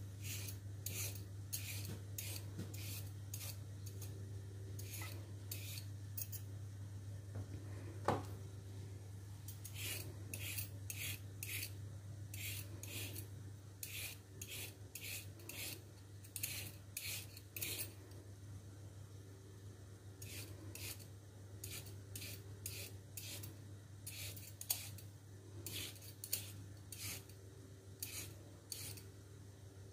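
Hand vegetable peeler scraping strips off a raw carrot in short strokes, often several in quick succession with brief pauses between, over a steady low hum.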